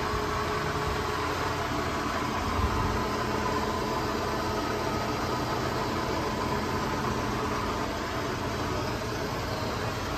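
Kearney & Trecker model 420 TF-17 universal milling machine running steadily at a low spindle speed setting of 15, its motor and gear drive giving a constant hum with a steady whine.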